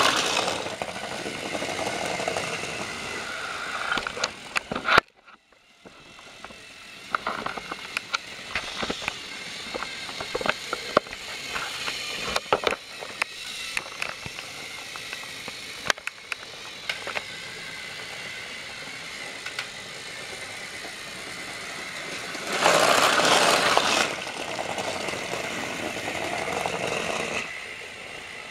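Battery-powered Trackmaster toy train motors whirring as the trains run over plastic track, with many scattered clicks and rattles. The sound breaks off briefly about five seconds in, and there is a louder stretch of about a second near the end.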